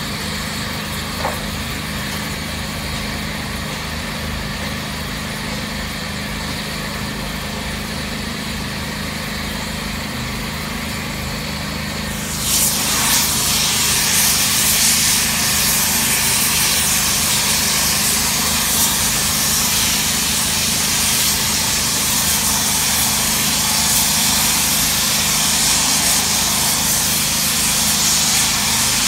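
Gas preheating torch burning steadily at a thermite rail-weld mould over a low steady hum. About twelve seconds in, a much louder steady hiss starts and holds: the thermite charge burning in its crucible on the mould.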